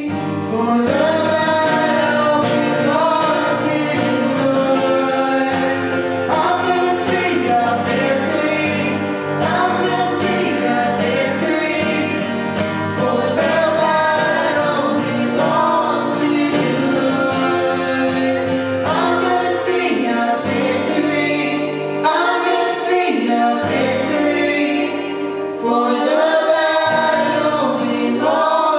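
Christian worship music: a group of singers with band accompaniment and a steady beat.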